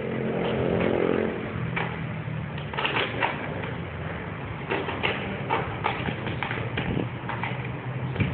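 Street traffic: a vehicle engine running, loudest in the first second or so, with scattered short sharp clicks and knocks throughout.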